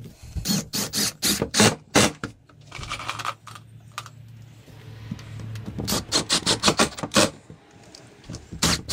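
Cordless impact driver driving 2-inch decking screws through pocket holes into a wooden door frame. Its rapid hammering clatter comes in spells: one near the start, another about six seconds in, and a third near the end, with a low motor hum in the lull between.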